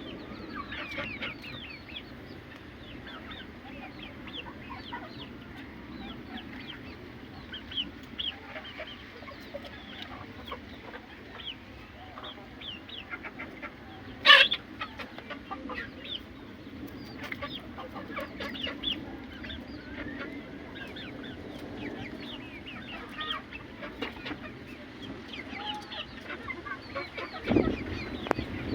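Chickens clucking, with many short high chirps throughout and one sharp, loud squawk or knock about halfway.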